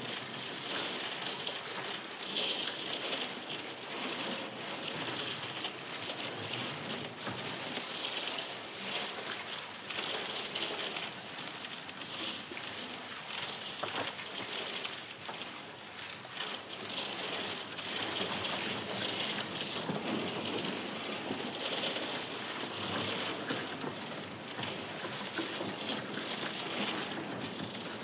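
Computer-processed field recording of thawing pond ice sheets cracking and breaking, heard as a dense, continuous crackle of many small clicks.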